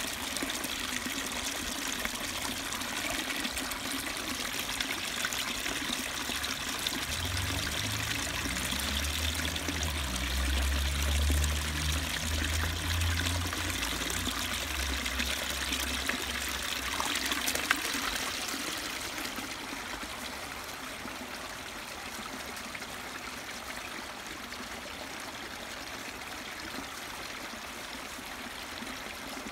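Small stream trickling and splashing over rocks as a dog wades in it to pull out a stick. A low rumble comes in for several seconds near the middle, and about two-thirds through the water sound drops to a softer, steady trickle.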